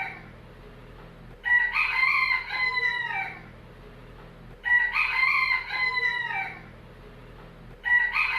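Rooster crowing: two full cock-a-doodle-doo crows about three seconds apart, each about a second and a half long and dropping in pitch at the end, with a third crow starting near the end.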